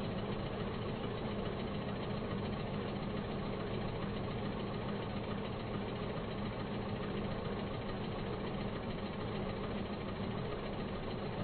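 Car engine idling steadily with no revving, a dubbed-in sound effect of a car waiting on the starting grid.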